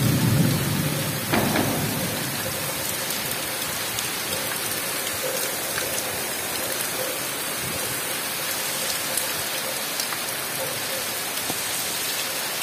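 Heavy tropical downpour: a steady, even hiss of rain falling on dense jungle foliage and a paved road. A low rumble of thunder fades away in the first second or two.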